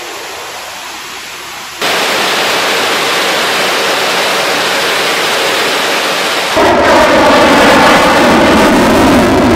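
Military jet engines running with afterburner lit: a loud, steady rushing noise that steps up sharply about two seconds in and again at about six and a half seconds. In the last part the noise has the sweeping, wavering tone of a jet flying past.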